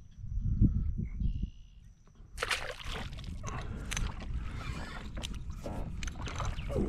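Water sloshing and splashing close beside a kayak, starting suddenly about two seconds in, with many small crackling clicks; before that only a low rumble.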